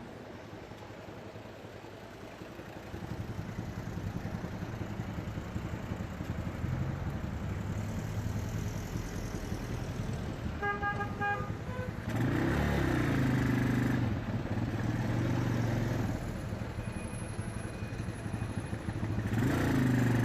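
Asya Ultra 150 motorcycle, bored to 200cc, heard while riding: the engine runs louder from about three seconds in and revs up and down from about twelve seconds in and again near the end. A horn gives a quick series of short beeps just before the revving starts.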